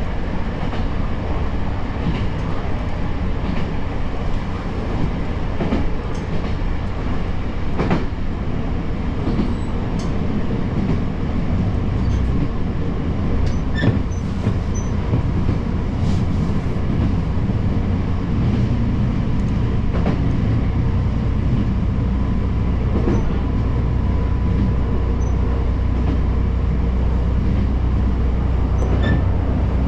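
Kyoto Tango Railway diesel railcar running along the line, a continuous rumble with a few sharp clicks of the wheels over the track. The low rumble grows louder about two-thirds of the way through, and a faint steady whine joins it.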